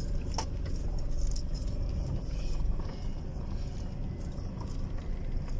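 Road and engine noise inside a moving car: a steady low rumble, with a few faint clicks.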